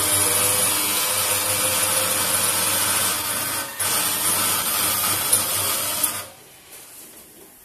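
Lely A4 milking robot at work under the cow, a steady mechanical hiss and hum. It dips briefly past three seconds in, then drops away sharply about six seconds in.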